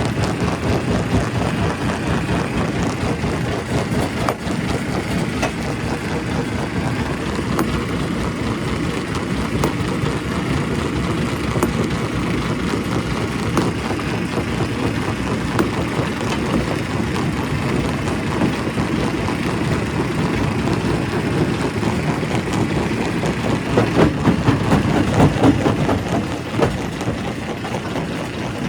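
Primary rock crusher running, with the steady drone of heavy machinery and many sharp knocks and cracks of rock being broken. Near the end comes a run of louder knocks.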